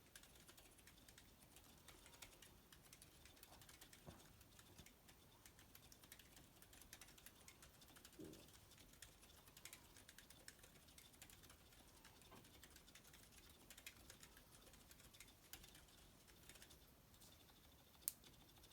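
Quiet typing on a Quefrency rev2 split keyboard with lubed, filmed Cherry MX silent red switches and PBT keycaps: a soft, shuffley patter of damped keystrokes. The keystrokes thin out near the end, and one sharper click comes just before the end.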